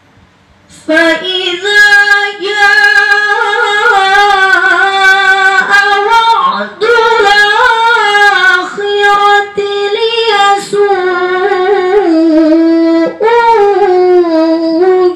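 A woman's voice reciting the Qur'an in the murattal style into a handheld microphone. The chant is slow and melodic, with long held notes and short breath pauses, and it starts about a second in.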